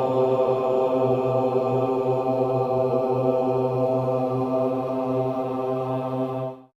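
A mantra chanted on one long, steady low note, held without a break and cut off abruptly near the end.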